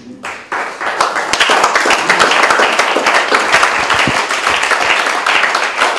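Audience applauding, the clapping building up over the first second or so and then holding steady.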